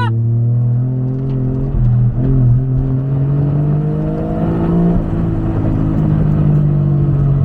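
Toyota 1JZ inline-six engine revving under load: its pitch climbs steadily for about three seconds, drops sharply about five seconds in, then holds fairly steady.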